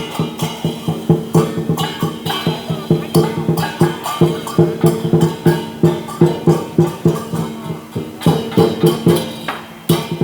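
Chinese dragon dance percussion: a big drum beating a steady rhythm of about two to three strikes a second, with crashing cymbals and ringing metal, easing off briefly near the end.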